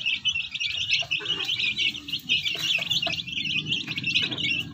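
A brood of newly hatched chicks peeping without pause, many short high peeps overlapping.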